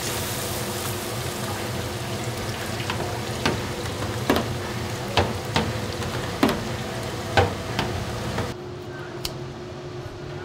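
Battered pork ribs deep-frying in a commercial fryer, a steady sizzle of hot oil, with about seven sharp metal clanks of the wire fryer basket and strainer in the middle stretch. The sizzle cuts off about eight and a half seconds in, leaving a faint steady hum and one more click.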